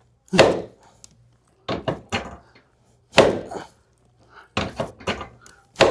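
A string of sharp knocks and thumps on a chiropractic treatment table, some coming in quick pairs, each with a short ring.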